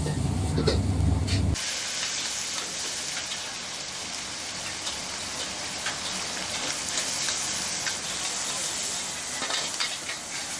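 Noodles stir-frying in a hot wok over a gas burner: a steady sizzling hiss with scattered clicks and scrapes of the metal spatula against the wok. It opens with a low gas-burner rumble that cuts off about a second and a half in.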